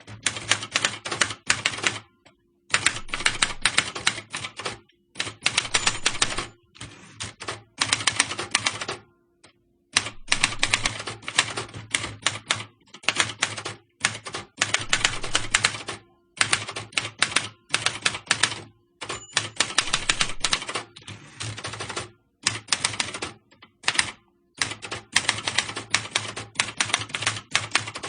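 Typewriter being typed on: rapid runs of key strikes, each run lasting a second or two, separated by short pauses.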